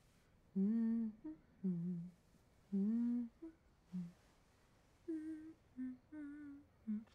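A woman humming a lullaby: a slow tune of drawn-out notes in short phrases, with brief pauses between them.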